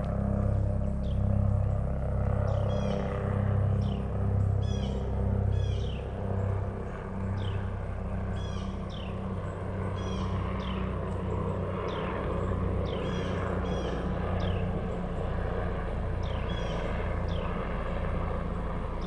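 Low drone of a passing aircraft overhead, throbbing in slow pulses at first and then steadier. Short, repeated bird chirps sound over it.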